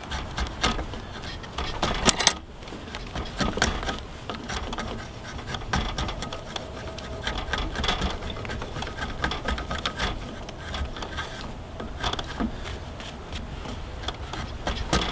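Drawknife shaving the corners of a maple knife handle held in a bench vise: repeated irregular scraping strokes of steel across wood, with sharp little clicks.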